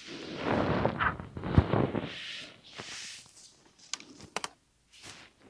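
Fabric and an acrylic quilting ruler being handled and slid on a cutting mat: rustling and sliding for the first couple of seconds, a sharp knock about a second and a half in, then a few light clicks and taps.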